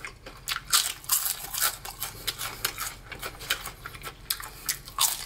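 Homemade fried potato chips crackling and clicking against a stainless steel bowl as fingers pick through them: many short, crisp, irregular clicks, several a second.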